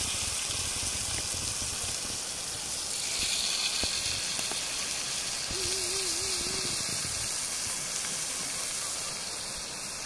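A steady hissing, rushing noise.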